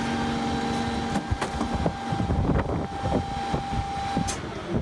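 Gusty wind buffeting the microphone in an uneven low rumble, over a steady mechanical hum, with a few sharp clicks and rattles.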